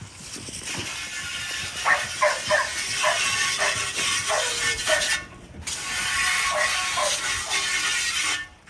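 Kennel dogs barking in a quick run, about three barks a second, over a loud rattling noise that cuts out briefly about five seconds in and stops near the end.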